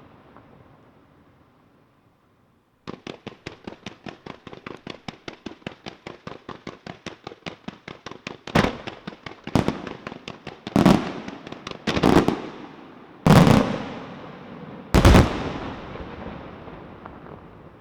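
Fireworks display: a fading echo, then a fast string of sharp cracks, several a second, for about five seconds. Then six loud shell bursts a second or so apart, each with a rolling echo.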